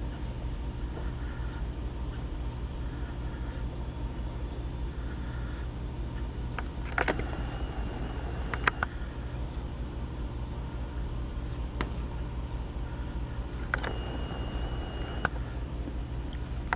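Steady low outdoor background rumble, with a few faint clicks and two brief, steady high whines of about a second each, one near the middle and one near the end.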